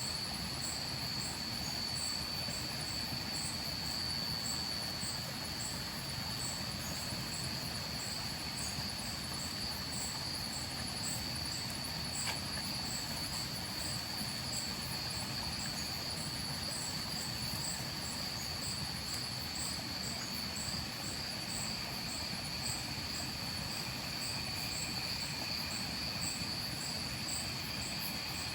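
Tropical forest insects at night: one steady high-pitched trill, with a higher chirp repeating about once a second, over a low steady rush of flowing stream water.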